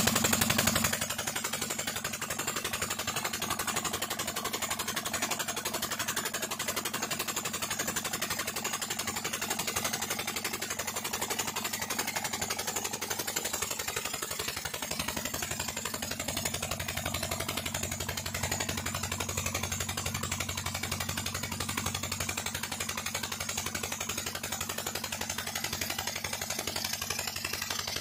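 Petter stationary diesel engine running steadily, driving a tube well pump for irrigation.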